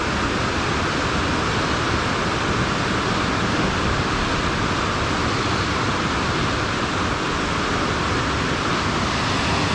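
Steady rush of water pouring through a river dam, an even roar with no breaks.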